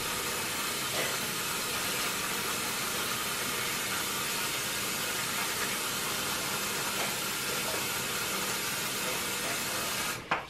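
Bathroom sink tap running steadily, an even hiss of water into the basin, cutting off abruptly near the end.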